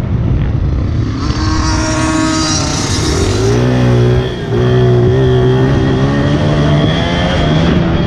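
Honda CRF80 pit bike's small single-cylinder four-stroke engine under throttle, its pitch climbing, then a brief dip about four seconds in as the throttle closes or it shifts, after which it pulls on at a steady high rev.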